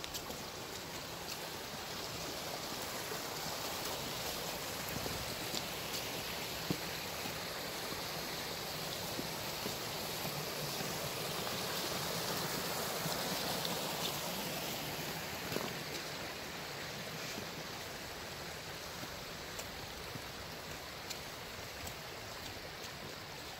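Muddy floodwater rushing down an eroded dirt street, a steady rushing that swells to its loudest about halfway through, where the water spills over a rocky step, then eases off.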